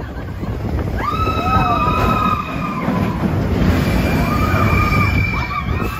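Expedition Everest roller coaster train rumbling along its track while riders scream, two long held screams of several voices, one starting about a second in and another about four seconds in.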